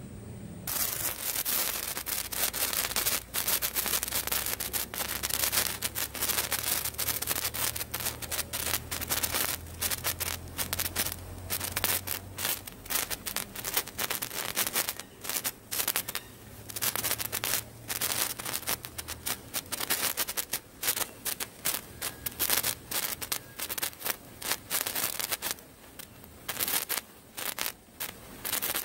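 Sree Raghuram 15 cm colour sparkler catching about a second in and burning with a dense, irregular crackle and fizz, which grows sparser near the end.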